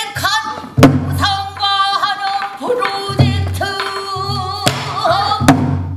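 Female pansori singer singing a drawn-out line with wavering, gliding pitch, accompanied by a gosu's buk barrel drum, with a sharp drum stroke about a second in and another near the end.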